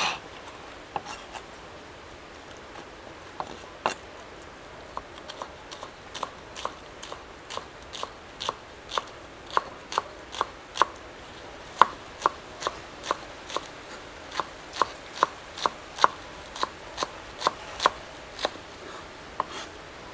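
A cleaver chopping green onions on a wooden chopping board. A few scattered knocks come at first, then steady chops at about two to three a second.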